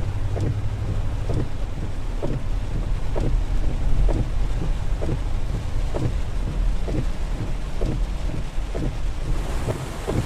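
Storm wind buffeting the microphone in a steady, heavy low rumble, with irregular short knocks about once or twice a second.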